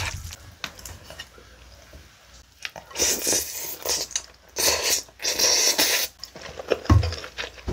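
Close-miked eating sounds: a spoonful of spicy webfoot octopus rice taken into the mouth and chewed, with wet, hissy mouth and breath noises in two bursts about three and five seconds in, and a low thump near the end.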